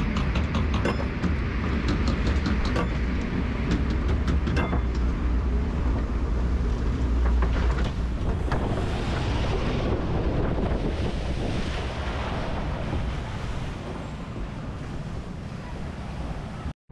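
Log flume boat ride: the lift conveyor clicks sharply in the first few seconds, then the boat runs down the water chute with rushing water and wind rumbling on the microphone. The noise eases off near the end as the boat slows in the splash channel.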